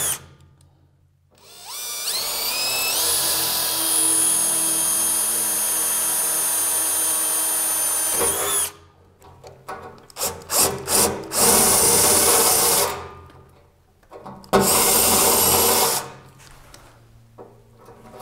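Cordless drill drilling holes in the lathe's metal chip guard: it spins up with a rising whine about a second in and runs steadily for about six seconds, then comes in a string of short trigger bursts followed by two more runs of about a second and a half each.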